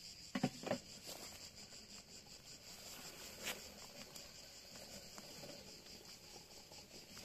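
Faint, steady high chirring of insects such as crickets, with a few short knocks about half a second in.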